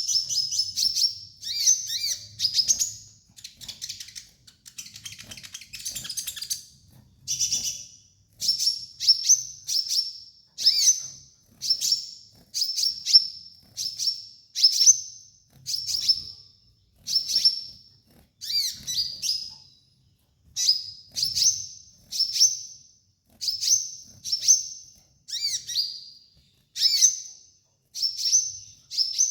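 Kolibri ninja sunbird song: a run of short, high, chirping phrases, about one a second, each with a quick rising sweep. There is a denser, buzzier trill about four to seven seconds in.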